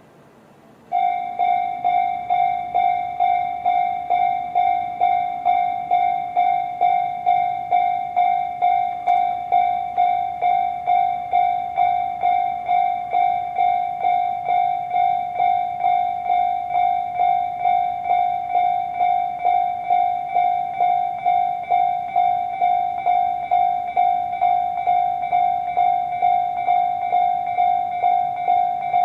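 Japanese railway level-crossing electronic warning bells of the Tobu 'sound C' type, starting abruptly about a second in. They then ring on steadily, a little under two strikes a second.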